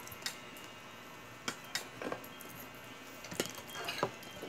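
Spoons and forks clinking lightly against plates a handful of times, short scattered clicks with quiet between.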